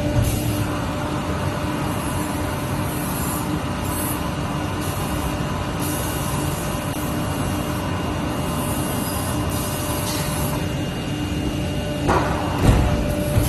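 Conveyor-belt car floor mat cutting machine running with a steady hum and a constant low tone, with a couple of knocks near the end.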